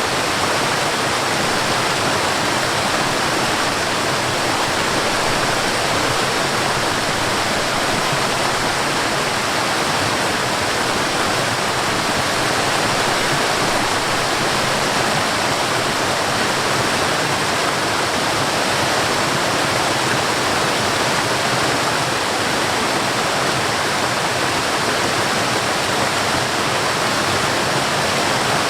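Stream water rushing over a small waterfall in a steady, unbroken wash.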